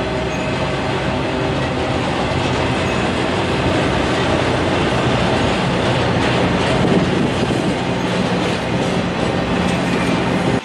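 Intermodal freight cars loaded with highway trailers rolling past on the rails: a loud, steady wheel-and-rail noise, with clicking from the wheels between about six and nine seconds in.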